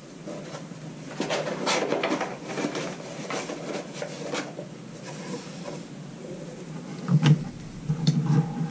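A cardboard box of sports cards being handled and sorted: rustling and sliding of cards and cardboard, with two sharper knocks near the end.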